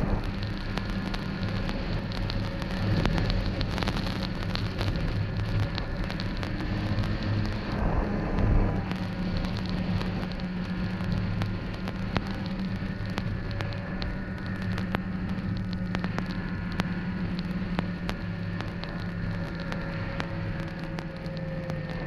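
Snowmobile engine running at a fairly steady pitch, with a dense crackle of clicks over it.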